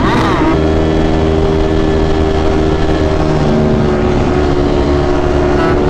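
Sportbike engine running hard at steady high revs on the move, with a short wavering in pitch right at the start.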